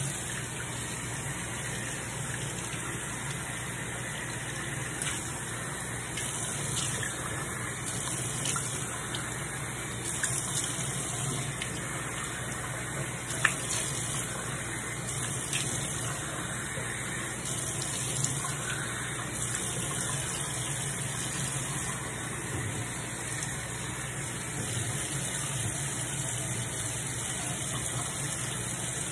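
Bathroom tap running steadily while hands splash water on the face to rinse off a sugar scrub, the splashing coming and going every second or two. One sharp click about halfway through.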